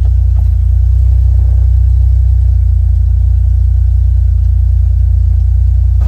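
Jeep engine running steadily with a deep, even rumble.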